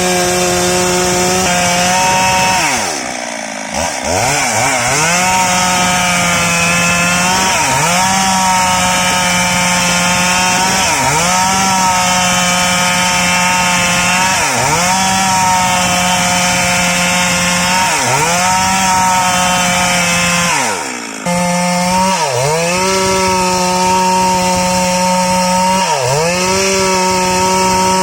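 STIHL MS 382 two-stroke chainsaw held at high revs while ripping lengthwise through a salam log. The engine pitch sags and recovers every two to three seconds as the chain bites, and twice, a few seconds in and near two-thirds of the way, the revs drop away briefly before climbing back.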